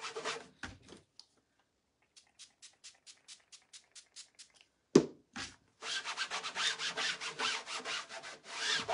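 A rag rubbing bronze spray paint into the edge of a painted burlap board in quick back-and-forth strokes, about four to five a second. The rubbing stops for a few seconds of faint ticking, and there is one sharp knock about five seconds in before it resumes.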